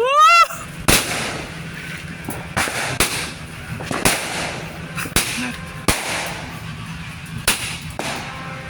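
100-shot 0.7 thunder fireworks cake firing: a rising whistle at the start, then about eight sharp bangs at irregular intervals of roughly half a second to a second and a half.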